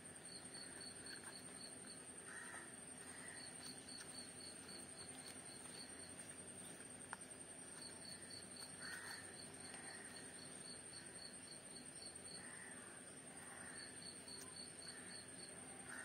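Faint background sounds: an insect chirping in trains of rapid pulses over a steady high-pitched whine, with a few faint bird calls and one small click about seven seconds in.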